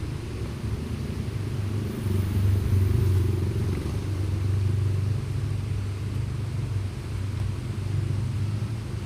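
Low rumble of road traffic crossing the bridge overhead, swelling about two seconds in and then running on steadily.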